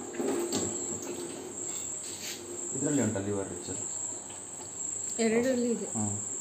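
Crickets chirping in a steady high trill, with short stretches of low, indistinct talk about three seconds and five seconds in, and a few light clicks of handling.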